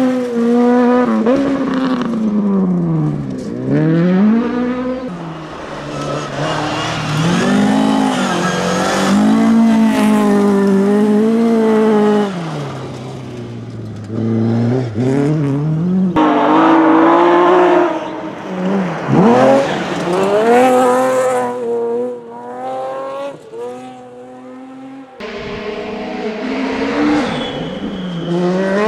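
Rally cars at full effort on a gravel stage, passing one after another. Each engine note climbs and drops sharply through gear changes, braking and acceleration out of the bends, with tyre and gravel noise underneath.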